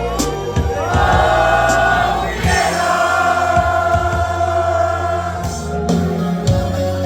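Live band playing a song: voices holding long sung notes over bass and a steady drum beat.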